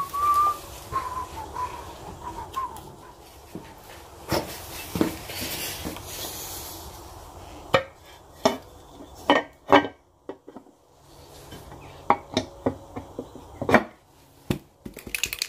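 Scattered clicks, taps and knocks of the clutch cover, gasket and slave cylinder being handled and fitted against a motorcycle engine case, with a short high squeak at the start.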